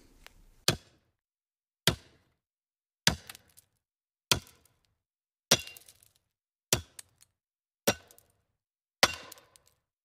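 Kitchen knife chopping vegetables on a wooden cutting board: single sharp chops, about one every 1.2 seconds, each dying away quickly.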